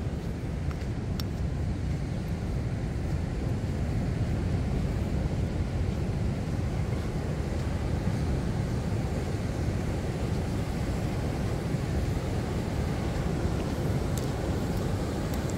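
Ocean surf breaking on a sandy beach: a steady, low roar without pauses.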